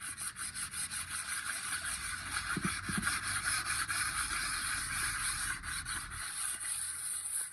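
Scraping and rubbing on the deck surface of a Suzuki Eeco engine block, in rapid, even strokes, as the old residue is cleaned off before reassembly. It stops suddenly at the end.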